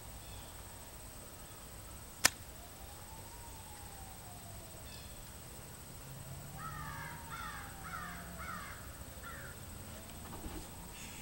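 One sharp crack about two seconds in, the loudest sound. Later a crow caws about six times in quick succession, over a faint siren slowly rising and falling twice.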